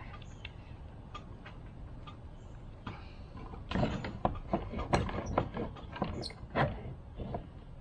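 Irregular sharp knocks and clicks, a few at first, then a quick, louder run of them from about four to seven seconds in.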